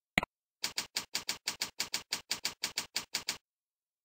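A single mouse click, then a quick, even run of about seventeen keyboard keystroke clicks, about six a second, typing out a server name. The clicks are separated by dead silence, as in a typing sound effect added to a screen recording.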